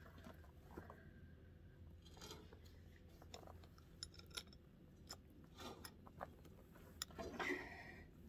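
Faint hand-handling sounds of fitting a gullet plate and its screw into a leather soft-tree saddle: scattered small clicks and rustles, with a louder rustle near the end.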